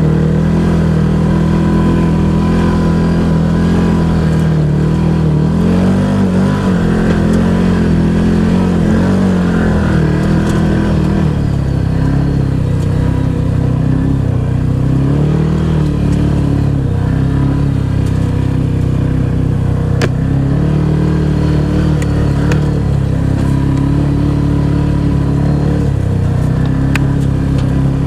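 Side-by-side UTV engine running in four-wheel-drive low on an uphill trail, its revs rising and falling every few seconds. A few sharp clicks or knocks come in the second half.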